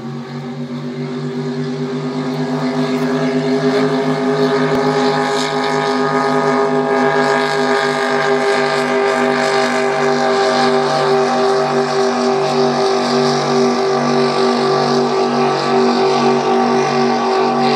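Engines of several racing boats running at high, steady speed, their near-matching pitches beating into a slow pulsing drone that grows louder over the first few seconds.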